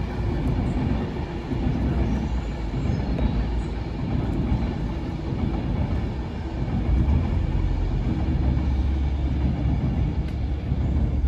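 Loud, steady low rumble, heavier in the second half.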